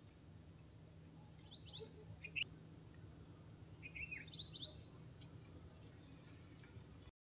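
Birds chirping faintly: short, quick chirps in two clusters, about a second and a half in and again about four seconds in, over a steady low background noise.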